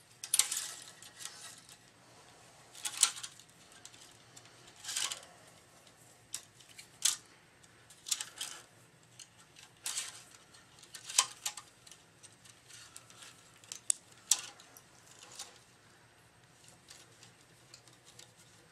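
Tennis string being woven by hand through the main strings of a racket clamped in a stringing machine: quick swishes and snaps each time the cross string is drawn through, roughly one every second or two, dying away near the end.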